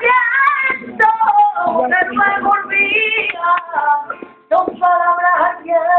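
A woman singing a Spanish song, holding and wavering long notes, with a brief pause between phrases about four and a half seconds in.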